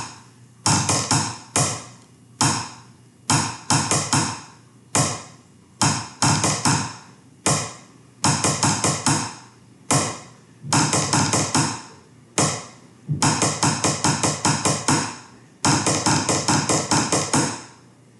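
Drumsticks played on a kitchen table top as a practice snare: a snare exercise of buzz rolls, each a short cluster of rapid pressed strokes, each followed by single taps. The rolls grow from five-stroke to nine-stroke and then seventeen-stroke toward the end.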